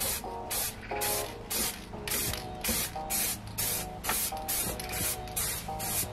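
Aerosol spray-paint can hissing in short repeated bursts, about two a second, spraying base-coat paint onto a car body panel.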